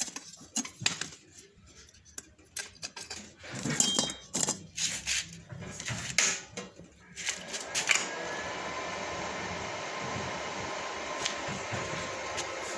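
Scattered metal clinks and knocks of metal parts and tools being handled. About eight seconds in, a steady hiss sets in and holds, typical of an electric stick-welding arc burning.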